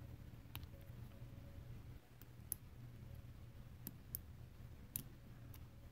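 Faint, scattered clicks of small metal revolver parts, about seven spread unevenly, as the trigger spring on its strut is worked into place in a Taurus 85's frame, over a low steady room hum.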